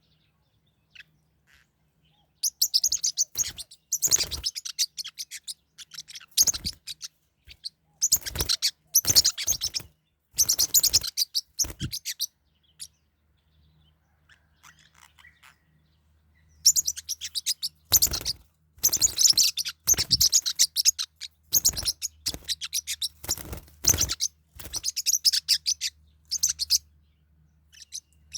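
Forpus parrotlets chirping in dense bursts of high, rapid chirps, with a lull of a few seconds in the middle.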